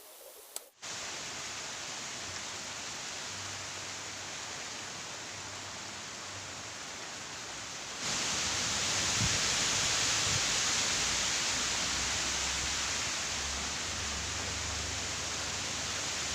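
Steady heavy rain, a dense even hiss that gets louder about eight seconds in.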